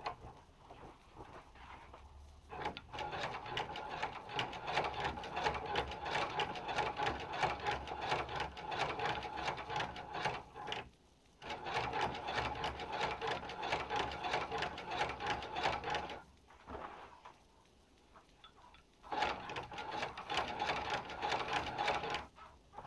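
Hand-cranked Chinese patcher leather sewing machine stitching veg-tanned kangaroo leather: a fast, steady clatter of the needle and shuttle mechanism as the handwheel is turned. It runs in three stretches, starting about three seconds in, with a brief stop near the middle and a longer pause of about three seconds before a last short run near the end.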